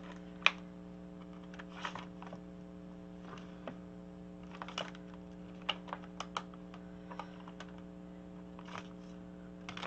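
Plastic embossing folders being flipped through and shifted in a plastic storage rack: scattered light clicks and short rustles, the sharpest about half a second in, over a steady low hum.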